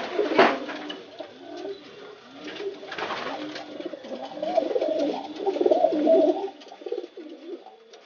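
Racing pigeon cock cooing repeatedly, loudest in the second half, a cock in the driving stage of courtship. Wing flaps or claps sound about half a second in and again about three seconds in.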